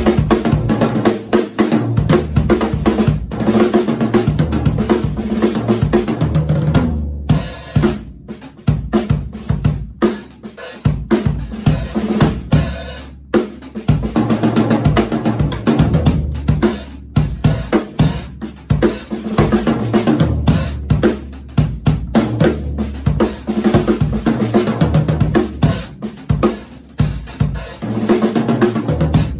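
1970s Japanese-made Bollero drum kit being played: bass drum, snare and cymbals struck in a continuous beat, with brief breaks about seven and thirteen seconds in.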